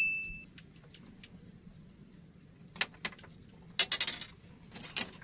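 A small bite bell on a fishing rod tip fades out from a ring, signalling a bite; then sharp clicks and rattles come in several quick clusters as the rod is handled in its holder.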